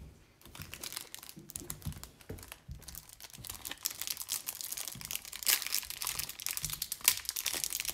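Clear plastic wrap on a Donruss football hanger box crinkling and tearing as fingers pick it open. The crackle becomes denser about three seconds in.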